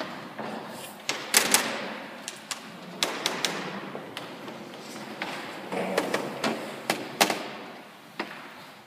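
Scattered knocks, taps and thuds in a large church, from people shifting in wooden pews. A few sharper knocks stand out about a second and a half in and again around seven seconds.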